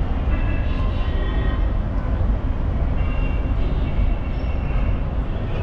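Outdoor city street noise: a steady low rumble of vehicles with a hiss of traffic above it.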